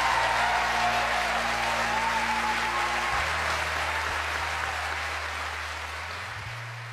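Audience applauding, slowly fading, over sustained low music chords that shift about three seconds in and again near the end.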